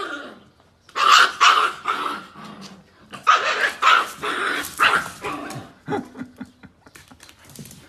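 Puppies and an adult dog at play, barking: a quick run of high-pitched barks starting about a second in and thinning out after about six seconds.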